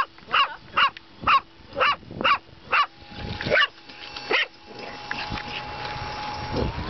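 A large black dog barking repeatedly at a model airplane: seven barks about two a second, then two more, slower. From about three seconds in, the steady whine of the model plane's motor comes up and runs on under the barks.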